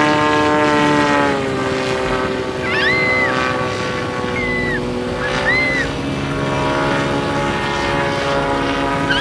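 Propeller engine of a flying boat in flight, a steady buzzing whine whose pitch drops about a second in and then holds with a slight rise and fall. A few short high chirps sound over it.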